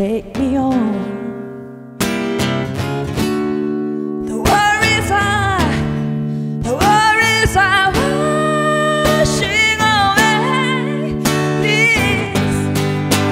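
Live blues performance: a singer holding long notes with vibrato over ringing guitar chords. The music thins to a fading note and drops out briefly, coming back in about two seconds in.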